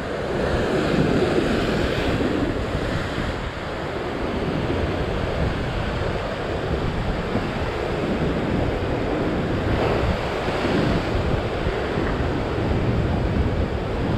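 Ocean surf washing and breaking over rock ledges, a continuous rush that swells now and then as a wave comes in, with wind buffeting the microphone.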